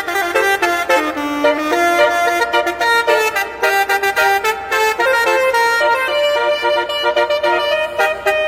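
Four-wheeled truck's musical horn playing a melody, note after note.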